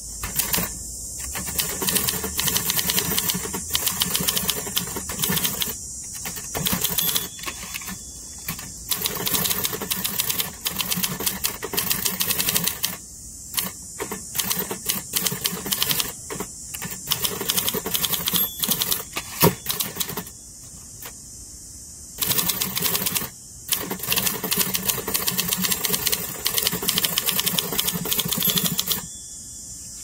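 A 1960 Olympia SM-4 manual typewriter being typed on: quick runs of key and typebar strikes with the carriage stepping along, broken by short pauses. The typing stops about a second before the end.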